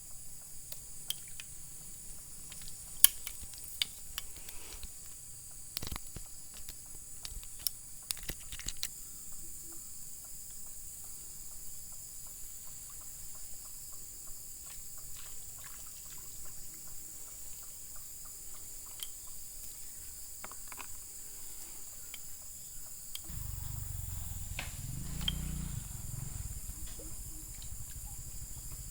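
Steady high-pitched chorus of insects, with scattered small clicks and taps for the first several seconds. A low rumble comes in near the end.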